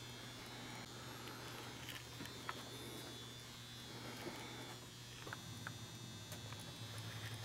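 A steady low electrical hum over faint room noise, with a few soft ticks.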